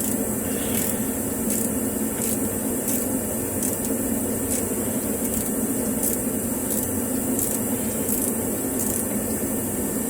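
Ratchet wrench working a suspension bolt on a Watts link, a short ratcheting click about every 0.7 seconds as the handle is swung back and forth, over a steady background hum.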